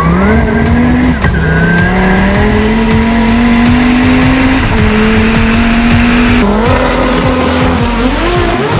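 Dodge Viper's V10 engine at full throttle, heard from inside the cabin: the pitch climbs steadily in each gear and drops sharply at each upshift, about four times. Near the end the engine note changes as another car takes over.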